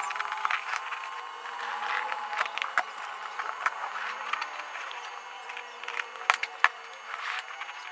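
Packaging and kit parts being handled during unboxing: scattered light clicks, taps and rustles, with two sharper clacks a little after six seconds in.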